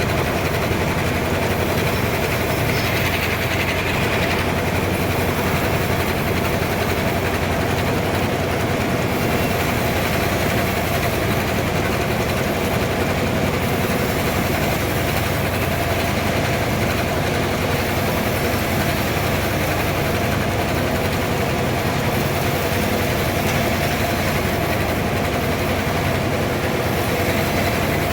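Sawmill machinery running steadily: an even mechanical drone made of many steady tones, with no change in level or pitch.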